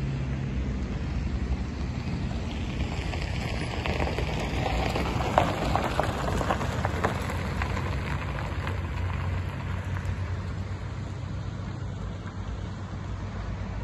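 Road and wind noise from a moving car: a steady rushing hiss over a low engine hum, with a short run of clicks and rattles in the middle.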